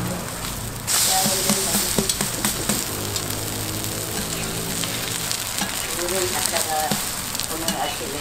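Korean buchimgae pancakes frying in oil on a round flat griddle, sizzling steadily, with short clicks and scrapes of a metal spatula on the griddle. The sizzle grows louder about a second in.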